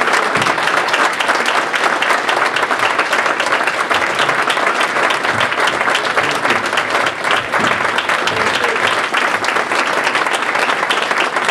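Audience applauding, many hands clapping at once, loud and steady.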